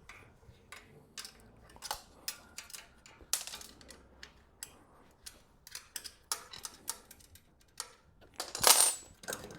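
Scattered metallic clinks and taps as a bed frame's bottom bar is worked loose from its uprights, with a longer, louder scrape near the end as the bar comes free.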